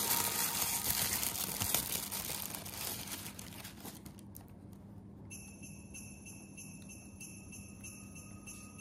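Tissue paper rustling and crinkling as it is pulled off a compact mirror, fading out about four seconds in. After that, quieter background music with ringing, bell-like tones.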